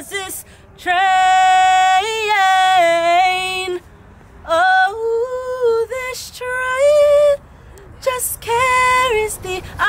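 A woman singing an unaccompanied song in long held notes, phrase by phrase with short pauses for breath.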